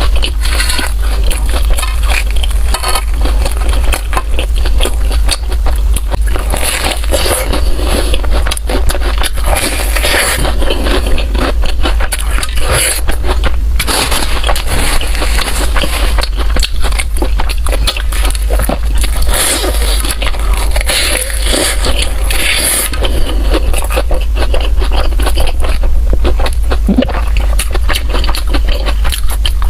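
Close-miked eating: a person biting and chewing food, with irregular crackling and scraping, over a steady low hum.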